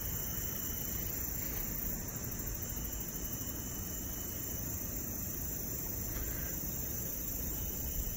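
Night-time crickets chirring in a steady chorus over a constant low background rumble.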